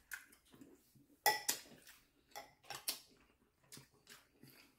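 Cutlery clinking and tapping against dishes during a meal: scattered short clinks, the loudest a little over a second in, then several lighter ones.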